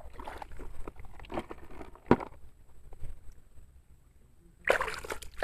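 Water splashing and trickling over a toy dump truck as it is washed clean, with scattered small knocks and one sharper knock about two seconds in. Near the end the water starts to rush more steadily.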